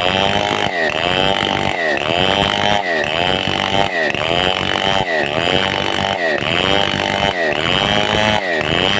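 Stihl 070 two-stroke chainsaw cutting wood under load. Its engine pitch dips and recovers in a steady cycle about once a second.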